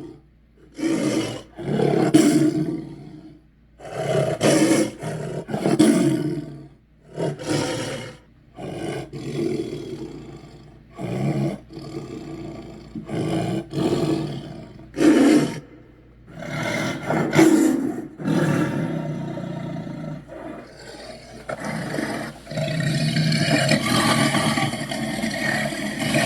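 Dragon roar sound effects: a rapid series of short, harsh roars and growls, then longer ones, ending in one drawn-out roar over the last few seconds.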